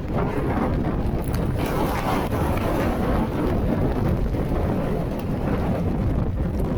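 Strong wind buffeting the microphone: a loud, continuous low rumble with hissing gusts, strongest about one to three seconds in.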